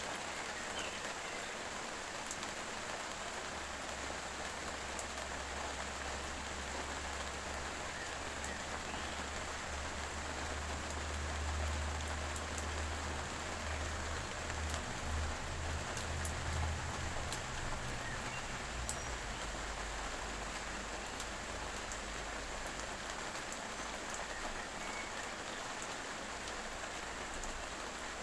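Steady rain falling, with scattered drops ticking. A low rumble swells in the middle and then fades.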